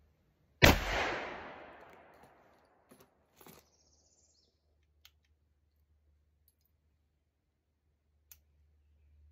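One shot from a .44 Pietta 1860 Colt Army replica cap-and-ball revolver, loaded with a Pyrodex pellet and a lead round ball. It goes off sharply about half a second in and its report takes a couple of seconds to die away. A few faint clicks follow.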